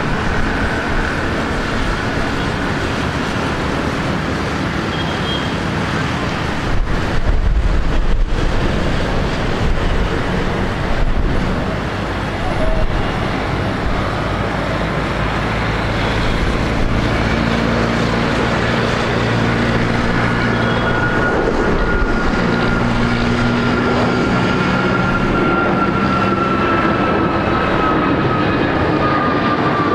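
Ilyushin Il-76TD's four Soloviev D-30KP turbofans running at taxi power: a steady jet rumble with a thin high whine that slowly falls in pitch over the second half.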